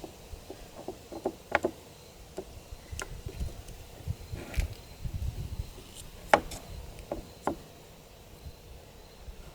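Scattered clicks and light knocks from wooden framing pieces and tools being handled, with two sharper knocks, one under two seconds in and one past six seconds.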